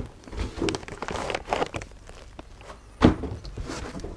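Unpacking noise: a cardboard box and foam packing rustling and scraping as an oscilloscope is lifted out, with a loud thump about three seconds in.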